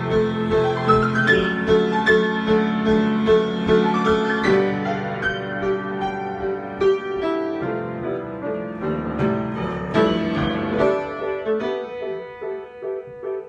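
Improvised solo piano playing: a repeated mid-register note pulses over chords and low bass notes. The texture thins after about four seconds and grows quieter near the end.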